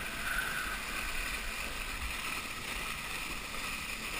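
Steady rush of water as water skis plane through a boat's wake at towing speed, mixed with wind buffeting the microphone.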